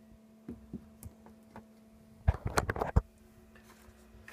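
Handling noise from a plastic quadcopter frame: a few light clicks, then a burst of knocks and clatter a little over two seconds in, lasting under a second.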